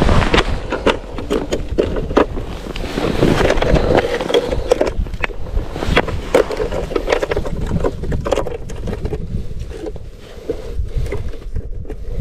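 Snow crunching and clothing rustling close to the microphone, with irregular scrapes and knocks as someone kneels and shifts on the snowy ice.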